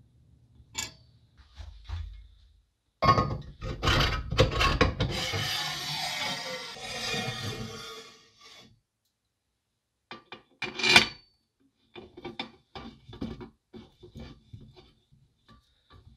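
Rasping scrape lasting about five seconds, then scattered light clicks and one sharp knock.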